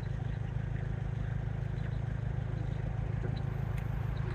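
A vehicle engine running steadily, a low, even rumble with a few faint ticks over it.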